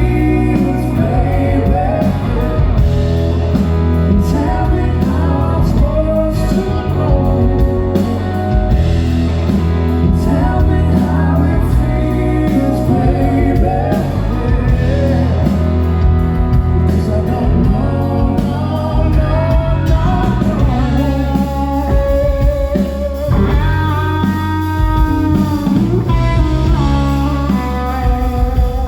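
Live rock band playing a song: a singer's voice over guitar, bass and drums, continuing throughout.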